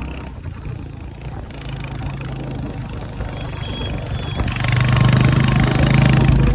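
Motorcycle engine running steadily, growing louder about two-thirds of the way through.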